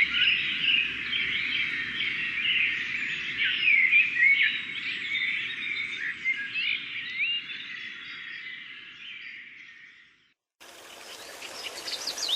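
Dawn chorus dominated by blackbirds: many songbirds singing at once, fading out about ten seconds in. After a moment of silence, a steady hiss of rain starts near the end.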